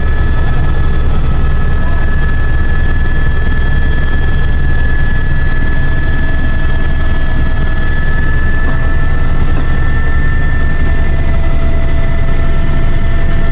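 Helicopter running steadily: a loud, rapid low rotor beat under a steady high-pitched whine.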